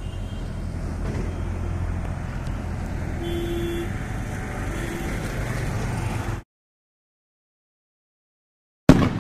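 Road traffic rumble with a short vehicle horn honk about three seconds in and a fainter one a little later. The sound cuts to dead silence after about six seconds, and a sudden loud burst comes near the end.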